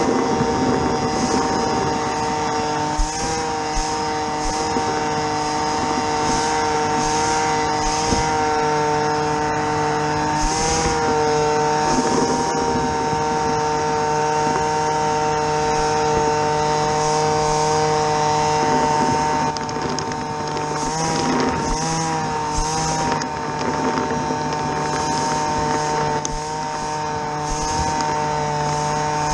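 Small petrol engine running steadily at a constant speed, its pitch wavering briefly a few times, with short bursts of hiss recurring over it.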